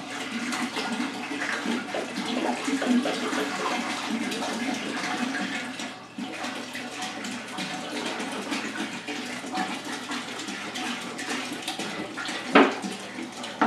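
Water pouring from a plastic gallon jug into a large stainless steel stockpot, a steady splashing pour with a brief break about six seconds in. A sharp knock comes near the end.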